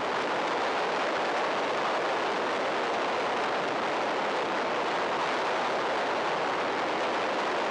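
Steady rushing wind and engine noise from an aircraft in flight, an unchanging roar with no distinct engine tone.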